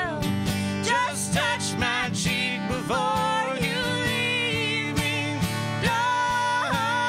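Acoustic guitar strummed under a man and a woman singing together in a country-style duet.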